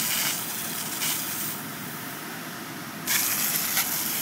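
Water rushing from fire hose smooth-bore nozzles under pump pressure, a steady hiss over the low running of the fire engine's pump. The high hiss is loudest for the first second and a half, drops away, then surges back about three seconds in.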